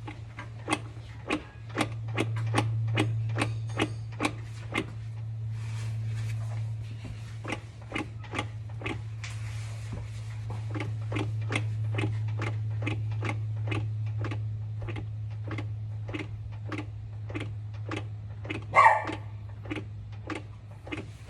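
Repeated clunks, about two a second, from the driveline of a 2010 Infiniti FX35 AWD as a front wheel is rocked back and forth, with free play taken up at each change of direction. The owner suspects wear in the transfer case. A steady low hum runs underneath, and one louder, squeakier clunk comes near the end.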